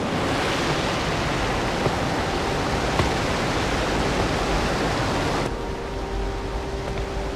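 Steady rush of falling water, like a waterfall, with no music. About five and a half seconds in, the highest hiss drops away and a faint steady tone comes in under the rush.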